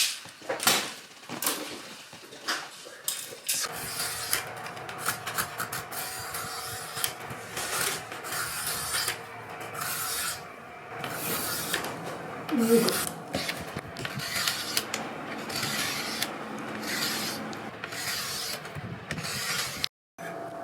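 Bamboo being worked by hand with a blade: repeated rasping scrapes and rubbing strokes, with sharp clicks and knocks of the cane, getting denser after the first few seconds.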